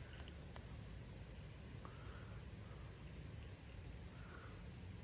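Insect chorus, a steady high-pitched trill holding without a break, over faint outdoor background noise.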